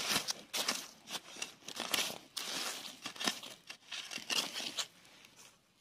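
Dry sand and gravel crunching and scraping in a quick, irregular run of about a dozen strokes, stopping about a second before the end.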